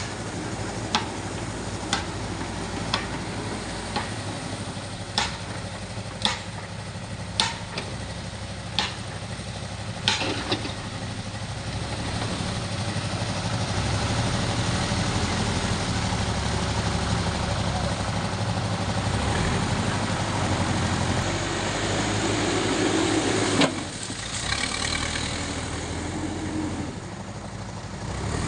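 Heavy machine engine running steadily, with a series of sharp knocks roughly once a second over the first ten seconds and one more knock later on.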